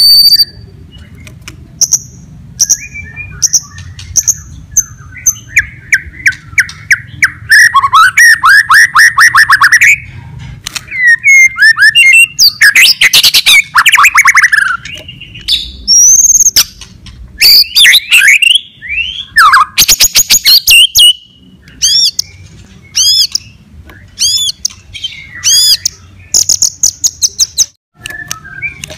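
White-rumped shama (murai batu) singing loudly and without pause in a varied song: clear whistled notes, fast rattling trills and sharp clicking notes, one phrase straight after another. It is a full 'gacor' fighter-style song, the kind used to rouse rival shamas.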